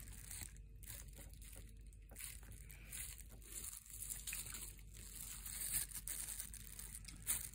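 Faint, irregular crinkling and rustling of hands in thin disposable plastic gloves handling a stack of trading cards, cards sliding against one another.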